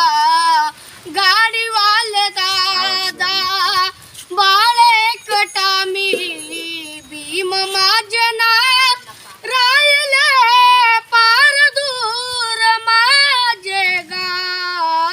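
A young child singing solo with no instruments, in a high voice with wavering, ornamented melodic runs and short pauses for breath.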